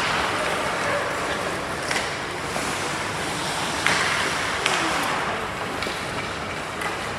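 Youth ice hockey play: skate blades scraping and carving on the ice, with a few sharp clacks of sticks and puck.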